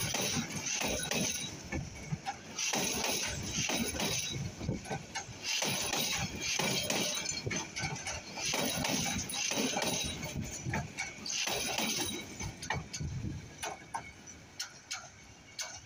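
Passenger train coaches rolling past on curved track, the wheels clattering over rail joints under a low rumble, with a hiss that swells and falls back every few seconds. The sound fades over the last few seconds as the train draws away.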